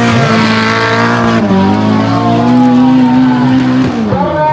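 Off-road tube-frame buggy's engine running at high revs as the buggy works through deep mud. The revs hold steady, dip about a second and a half in, climb back up and hold, then drop off near the end.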